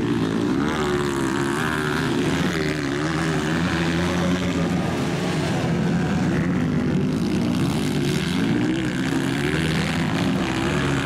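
Several Honda CRF230 four-stroke single-cylinder dirt bikes racing, their engines revving up and down over and over as the riders open and close the throttle through the corners.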